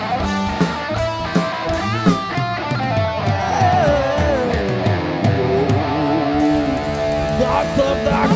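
A live blues band plays an electric guitar solo over drums, the lead guitar bending notes and holding them with slow pitch slides.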